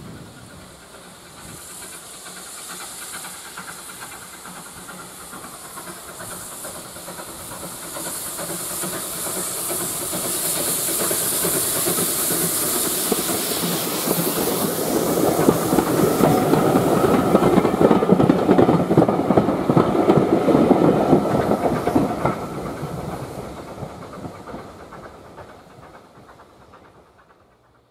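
Steam locomotive No. 72 Fenchurch, an LBSC A1 Terrier tank engine, approaches with a steady hiss of steam that grows louder and peaks just before it passes. Its coaches' wheels then clatter over the rail joints, loudest for a few seconds after it passes before fading away near the end.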